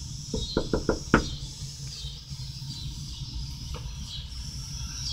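Knuckles knocking on a door: a quick run of about five knocks in the first second or so, with one fainter knock later.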